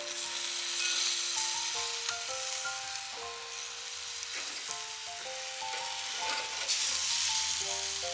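Whole marinated chicken sizzling over a charcoal grill as it is turned with metal tongs. Light background music runs underneath, a simple melody of held notes stepping up and down.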